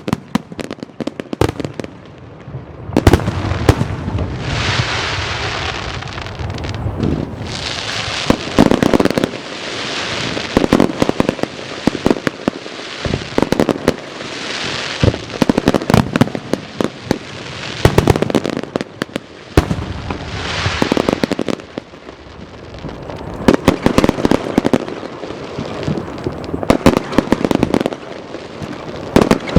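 Aerial fireworks show: rapid volleys of shell bursts with sharp bangs, in waves, with crackling and hissing between the volleys.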